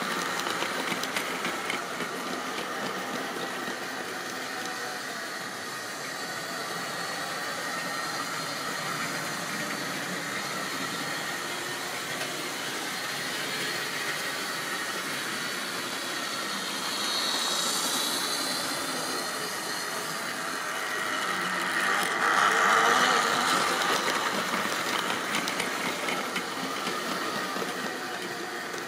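Model railway goods train running on the track, its wheels rattling over the rails and the locomotive's small electric motor humming steadily. It is loudest at the start as the wagons pass close by, carries on out of sight, and grows louder twice, most strongly a little past two-thirds of the way through.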